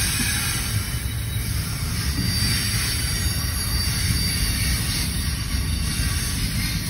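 Double-stack intermodal freight train rolling past, a steady low rumble of wheels on rail with a faint high-pitched wheel squeal now and then.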